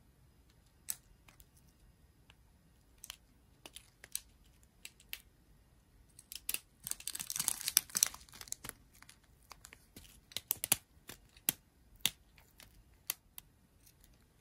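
Clear plastic packets of square diamond-painting drills being handled: scattered crinkles and clicks, with a denser burst of crinkling a little past the middle.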